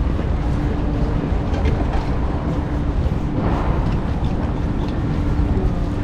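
Steady low rumble of wind buffeting the microphone, with a faint steady hum running through it and a short swell of hiss about halfway through.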